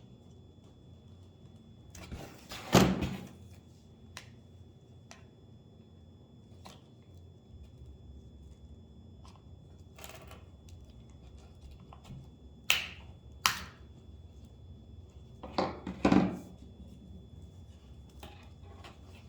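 Scattered knocks, taps and clicks of objects being handled and set down on a work surface while a firework canister shell is taken apart. The loudest knocks come about three seconds in and again around sixteen seconds.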